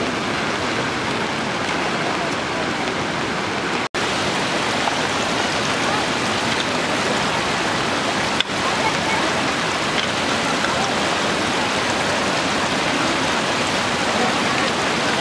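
Steady rush of floodwater mixed with falling rain, broken by a brief gap about four seconds in.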